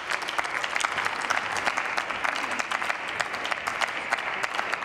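Applause from members of parliament: many hands clapping steadily in a dense patter.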